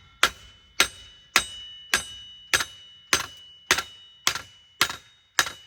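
Hammer striking steel in a steady rhythm, about ten evenly spaced blows, each leaving a short metallic ring, as a stuck wheel bearing is driven out of a Toyota Yaris's hub.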